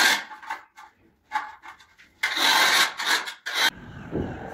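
Rough scraping strokes against a cement-plastered wall: several harsh strokes, the longest about a second and a half. They stop abruptly near the end, and a low rumble follows.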